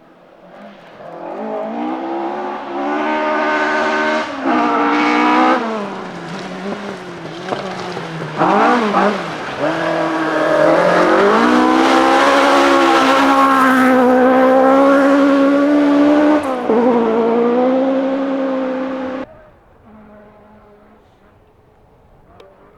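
Ford Escort Mk2 rally car's engine revving hard on a stage, its pitch climbing and dropping with each gear change as it comes closer and goes past at full throttle. The loud engine sound cuts off suddenly near the end, leaving a fainter engine further off.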